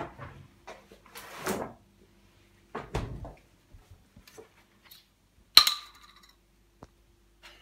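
Kitchen handling sounds: a few short rustles and knocks, then one sharp clink of crockery with a brief ring about five and a half seconds in.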